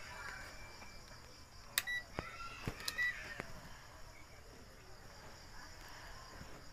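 Two short beeps from a digital multimeter with a few light clicks of resistor leads and test probes being handled, over faint steady cricket chirring.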